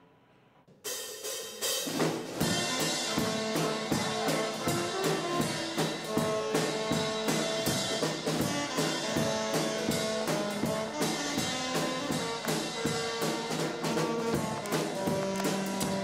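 Upbeat jazz band music, a saxophone playing held melody notes over a drum kit keeping a steady beat. It starts abruptly about a second in, after a moment of near silence.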